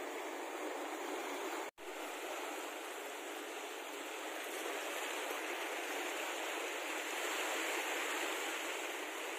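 Steady rushing wash of sea surf on a rocky shore, cut by a brief dropout just under two seconds in.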